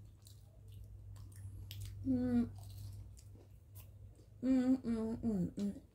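Soft chewing and small wet mouth clicks from people eating, over a low steady hum. Twice a short voiced sound cuts in, a brief one about two seconds in and a longer one from a woman about four and a half seconds in.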